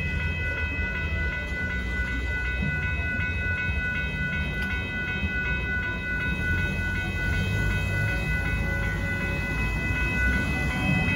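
Railroad crossing bell ringing steadily in a fast, even repeating pattern, over the low rumble of the freight train moving away.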